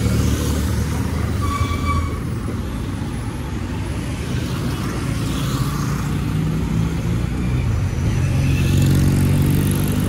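Kawasaki D-Tracker 250 single-cylinder engine idling at a stop with traffic running around it; near the end the engine note grows louder and rises slightly as the bike moves off.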